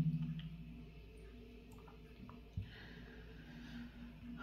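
Quiet small-room tone with a low steady hum while the phone is being read in silence. The tail of a loud noise from just before fades out over the first second, and a single faint click comes about two and a half seconds in.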